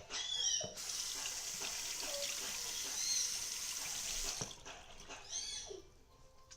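Water tap running into a sink for about four seconds, then turned off, while slime is wetted under it. A dog gives short high whines just before the water starts and again after it stops.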